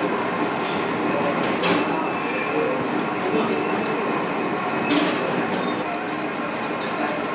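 Street ambience through a camcorder microphone: a steady rushing noise with faint high whines that come and go, and two brief sharp clicks, one near two seconds in and one about five seconds in.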